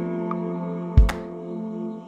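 Background music: sustained ambient tones with one deep drum hit about a second in.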